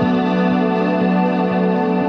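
Ambient background music: sustained keyboard chords with an organ-like tone, changing at the start, over a soft steady pulse.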